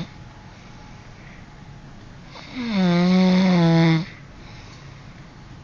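A sleeping man snoring: one loud, drawn-out snore of about a second and a half, about halfway through, its pitch dropping at the start and then holding steady, with quiet breathing before and after.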